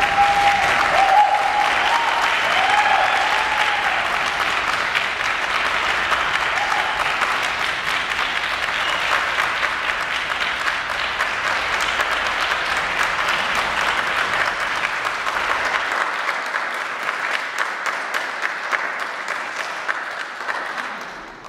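Audience applauding: dense, steady clapping with a few whoops in the first few seconds, dying away near the end.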